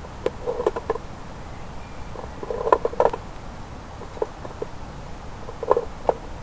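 Short bursts of knocks and rattles as a grey squirrel handles and tugs at closed aluminium Longworth traps, trying to dismantle them. The bursts come about four times, and the loudest is about three seconds in.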